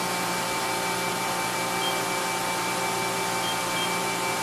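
Steady hum and whine of a powered-up Mori Seiki NT3200 multi-tasking CNC turning-milling center, several steady tones over an even hiss with no change in level.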